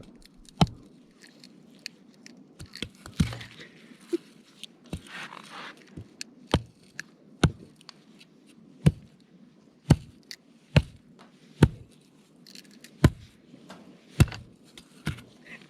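Repeated short, sharp scraping strikes, about a dozen roughly a second apart, as someone works at getting a campfire's tinder lit and keeps failing.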